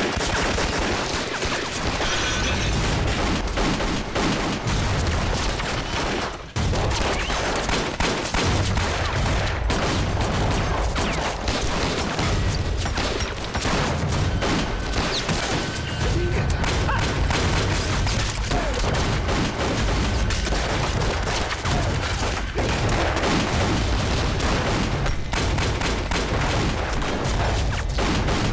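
Sustained film gunfight: pistol shots fired in rapid succession, with a brief break about six seconds in.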